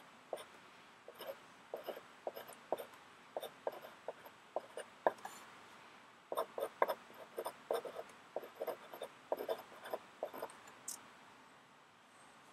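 Glass dip pen nib scratching across a paper card in a quick series of short strokes as letters are written, in two runs with a pause of about a second between them. A single sharp click comes near the end.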